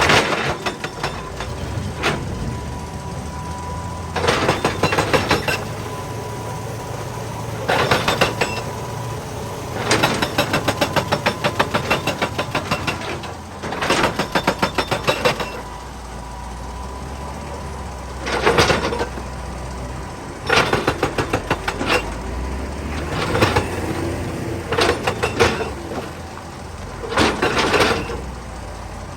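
Excavator-mounted hydraulic rock breaker hammering rock in about nine short bursts of rapid blows, each burst one to two seconds long, over the excavator's diesel engine running steadily.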